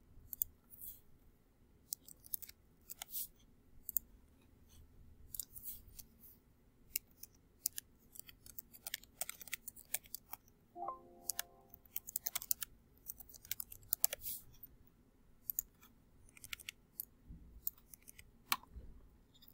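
Typing on a computer keyboard with mouse clicks: quick, irregular key clicks, some in short runs.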